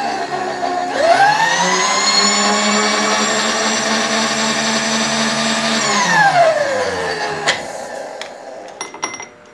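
Electric motor of the milling machine spinning up with a rising whine, running steadily for about five seconds, then winding down and stopping.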